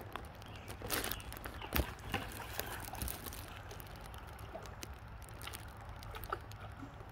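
Shallow creek water trickling and splashing, with a few sharper splashes or knocks in the first two seconds. A steady low rumble runs underneath.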